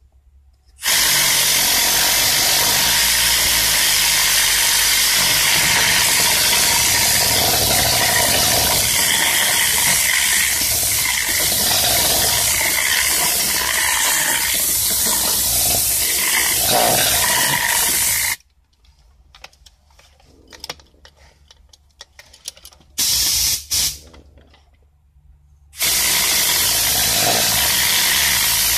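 Compressed-air Tornado cleaning gun hissing as it blasts a mist of cleaning solution onto a car's roof lining. It runs in one long blast of about 17 seconds, then a short burst of about a second, then starts again a few seconds before the end.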